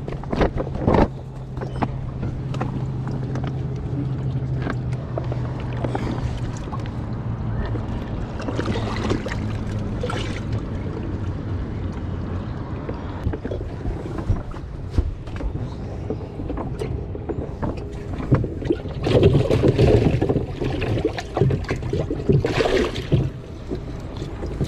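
Fish being moved from a bass boat's livewell into a water-filled tournament weigh bag. A steady low hum fades out after several seconds, then knocks and handling rustle, with two louder rushes of water sloshing in the last part.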